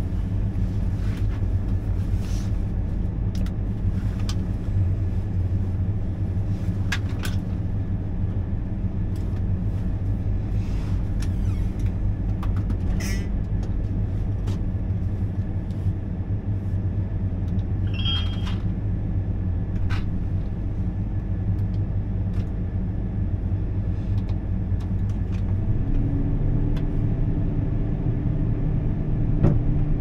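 Combine harvester's engine running steadily, heard from inside the cab as a deep rumble, with a few light clicks. About four seconds before the end its note shifts as a new steady hum comes in.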